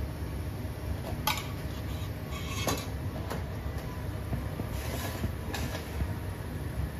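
A steady low hum from a restaurant kitchen, with a few short clinks and knocks of utensils and dishes at uneven intervals while a dessert is being prepared.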